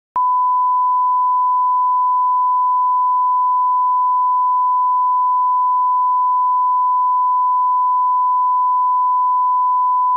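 Steady 1 kHz line-up test tone, the broadcast reference tone that goes with colour bars, a single unwavering pitch. It begins with a click just after the start and cuts off suddenly near the end.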